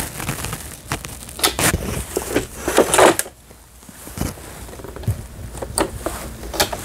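Hands handling a Brother CS6000i sewing machine with its end cover off: scattered plastic and metal clicks, knocks and light scrapes, with no motor running.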